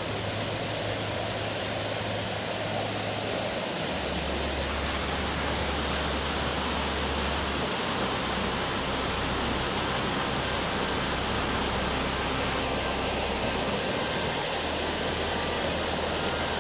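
A waterfall rushing steadily, an even hiss of falling water across all pitches; the falls are running fierce after recent rain.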